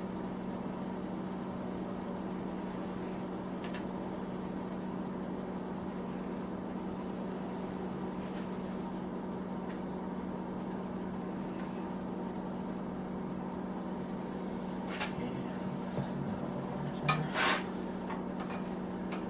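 Steady electric hum of a small space heater running, with a few light metallic clinks near the end as steel machine parts are handled, the loudest a quick pair about three-quarters of the way through.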